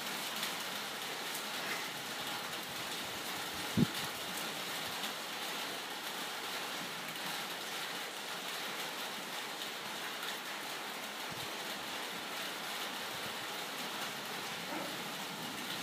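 Steady rain falling during a thunderstorm, an even hiss, with one brief low thump about four seconds in.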